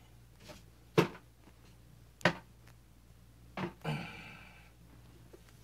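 Three sharp knocks a little over a second apart, the first the loudest, then a short scraping rustle: a broom being struck down at a rat.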